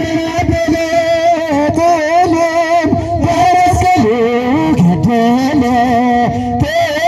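A song with singing and instrumental backing, played loud, with long held, wavering notes that step from pitch to pitch.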